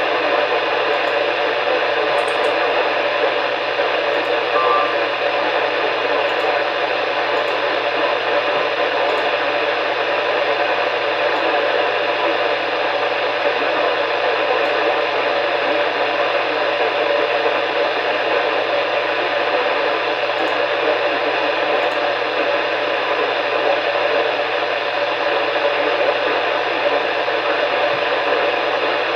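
Steady radio static: an even hiss from a weather radio receiver with no broadcast audio coming through.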